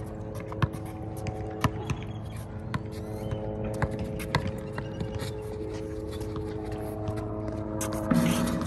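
A basketball bouncing on a concrete court, sharp irregular thuds over a steady hum. Near the end a louder, brief sound rises out of the hum.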